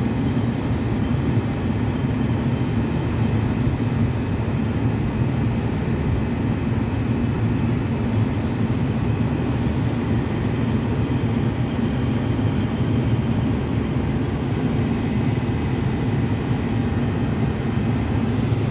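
Steady low mechanical rumble with a faint constant hum, unchanging throughout, like heavy machinery running nearby.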